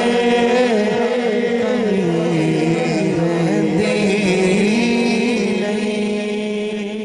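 Man singing a Punjabi naat unaccompanied into a microphone, drawing out long, winding melodic phrases on held notes.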